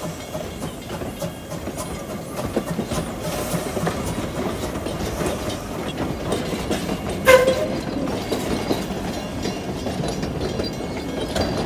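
Steam locomotive and its carriages rolling slowly past close by, wheels clicking and clanking over the rail joints with a steady rumble. There is one short pitched note, a squeal or toot, about seven seconds in.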